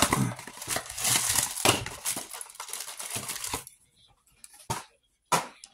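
Action-figure packaging being opened and handled: plastic and cardboard crinkling and rustling for about three and a half seconds, then a few light clicks.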